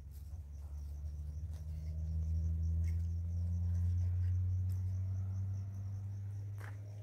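Insects chirring steadily in a high, fluttering band, over a low rumble that swells to its loudest about four seconds in and then fades.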